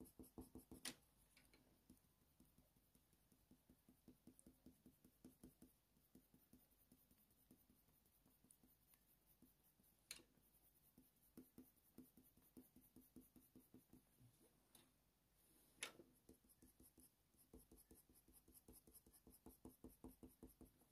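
Faint scratching of a Faber-Castell Polychromos coloured pencil on hot-press watercolour paper, in runs of short strokes a few a second with pauses between, and a few sharper ticks.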